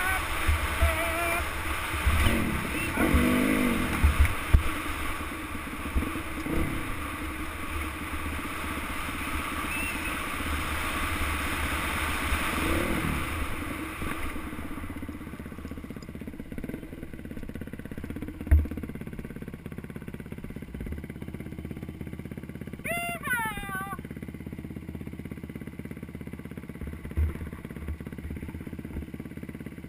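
Dirt bike engine running while riding a rough off-road trail, heard from a helmet-mounted camera, with scattered knocks from the bike over the ground. It is louder and noisier for the first half, then quieter, with one short rev a little over two-thirds through.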